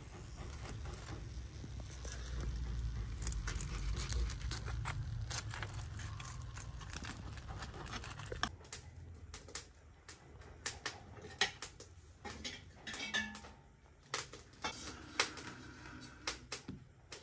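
Metal tongs clicking and clattering against a wire grill and a clay plate as whole grilled fish are lifted off and laid down, with sharp clicks and knocks coming thick in the second half. A low rumble fills the first half.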